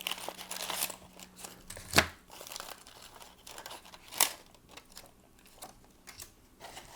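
Plastic packaging crinkling and rustling as small accessories are unwrapped and handled, with a sharp knock about two seconds in and another softer one about two seconds later.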